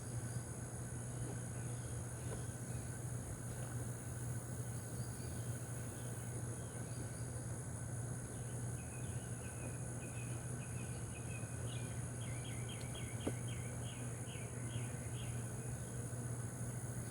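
Honeybees humming steadily around an opened hive over a constant high insect drone. From about nine seconds in, a bird sings a quick run of short repeated notes for several seconds.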